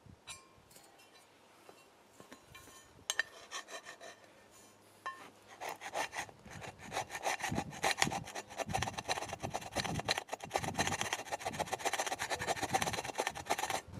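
Hand abrasive work on a part: rapid, continuous rubbing strokes that begin about six seconds in, after a few light clicks.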